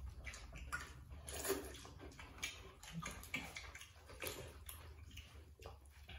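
Eating at the table: noodles slurped and chewed, with small scrapes and clinks of spoons in metal bowls, in short irregular bursts.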